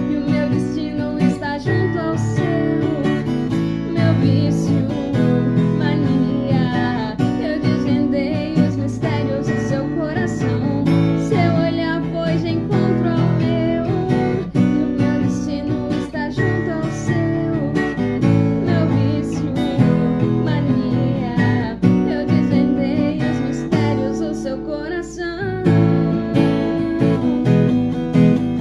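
Acoustic guitar (violão) strummed in steady chords, with a woman singing softly over it.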